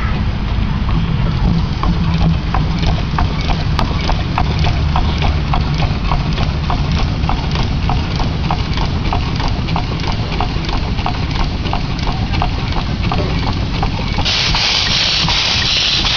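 1908 Peerless Model S steam traction engine running at slow idle: its engine ticks in an even beat, about two to three a second, over a low rumble. About fourteen seconds in, a loud steady hiss of escaping steam starts.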